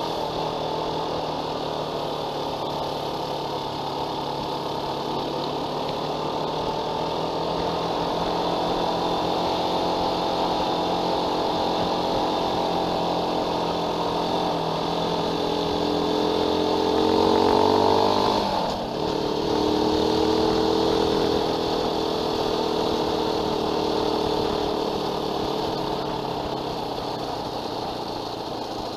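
Fantic trail motorcycle engine running under way. Its note climbs steadily as the bike accelerates, then drops sharply about two-thirds of the way through and runs on more evenly, easing off near the end.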